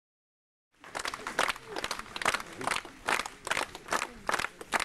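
A crowd clapping in unison, a steady beat of about two and a half claps a second, starting about a second in.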